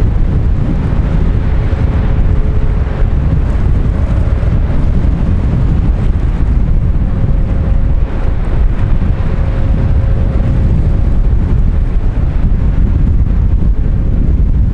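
Heavy wind rumble on the microphone over the low, steady drone of harbour tugboat engines working close by, with a faint steady hum that fades in and out.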